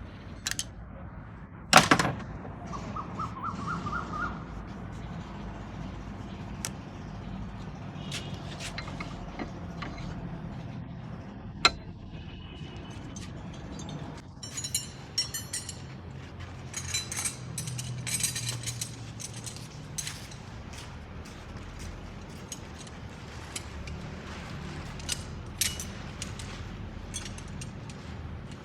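Metal tools and parts clinking and knocking during hand work on a tractor hydraulic lift cylinder, with one sharp knock about two seconds in and clusters of quick clinks in the middle, over a low steady hum.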